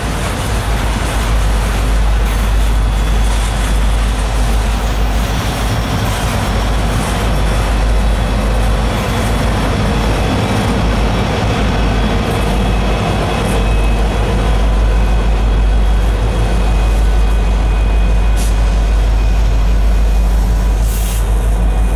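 Loaded coke train rolling past: a steady rumble of wheels on rail with a few faint, steady high ringing tones, growing somewhat louder in the second half.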